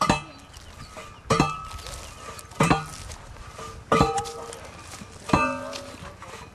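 Manual steel post driver, a heavy tube with handles, slammed down onto a wooden post: five metallic clangs about every second and a third, each ringing briefly.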